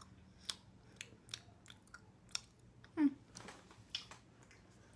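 Someone chewing a piece of white chocolate with the mouth closed: soft wet clicks of the mouth at uneven intervals, with a short hum about three seconds in.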